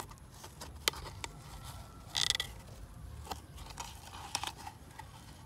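Handling noise from a homemade foil-covered cardboard toy dump-truck cab being turned in the hand: light crinkling and scraping with a few short clicks, and one louder crinkle about two seconds in.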